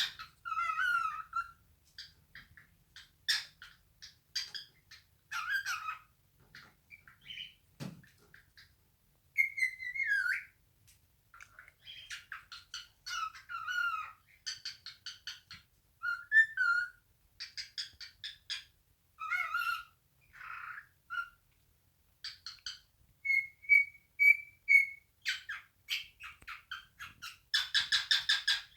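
Male cockatiel singing its natural song: a long string of varied whistles, chirps and warbles, with a run of short repeated whistles about two-thirds of the way in and a harsher chattering burst near the end. A single soft thump about eight seconds in.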